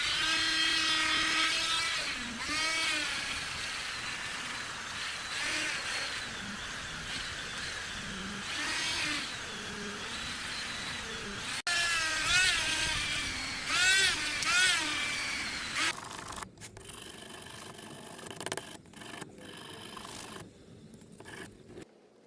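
Handheld rotary tool running against the steel of a folding knife's blade and bolsters, polishing them. Its whine slides up and down in pitch again and again as it is pressed on and eased off. It turns quieter and stop-start in the last few seconds.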